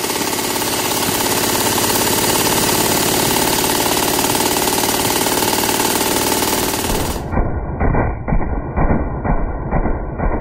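M240B 7.62 mm belt-fed machine gun firing one long continuous burst, lasting about seven seconds and cutting off suddenly. It is followed by a muffled, slowed-down track of irregular low thumps from slow-motion playback.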